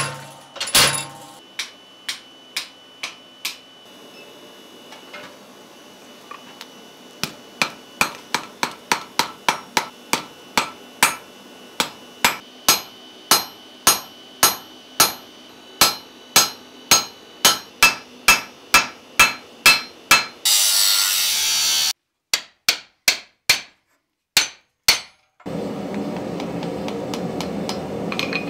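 Hand hammer blows on a hot railroad spike over a steel anvil as a hot chisel and punch are driven in. A few spaced strikes with a lingering metallic ring give way to a steady run of about two blows a second. Near the end a loud hissing rush lasts about a second and a half, and the last blows fall over a steady rushing background.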